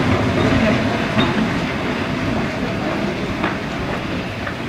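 Glasgow double-deck electric tramcar running along the rails, its wheels and running gear rumbling over the track. The sound fades slowly as the tram moves away.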